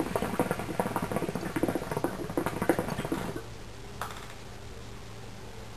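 Hookah bubbling: water gurgling in the base as a draw is pulled through the hose, in a rapid irregular run that stops about three and a half seconds in. A single faint click follows about a second later.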